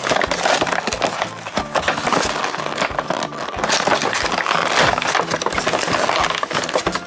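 Clear plastic blister packaging of a diecast toy car crackling and tearing as it is ripped open by hand, with continuous sharp crinkles and snaps.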